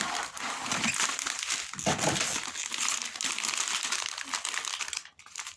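Plastic candy and snack wrappers crinkling steadily as they are handled and opened, with a brief pause about five seconds in.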